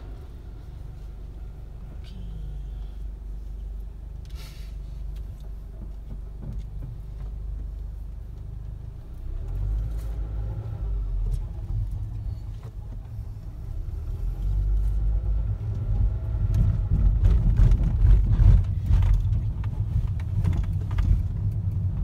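Car engine and road rumble heard from inside the cabin as the car pulls away from a stop and drives on, growing louder about nine seconds in. Later comes a run of knocks and bumps as the wheels go over the railway crossing.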